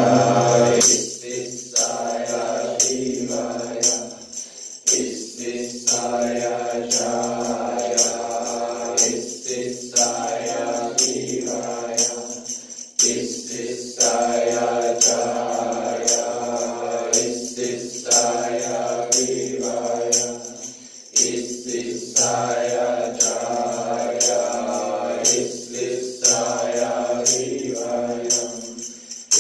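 Music with long, held vocal tones that change pitch every few seconds, over a steady jingling percussion beat.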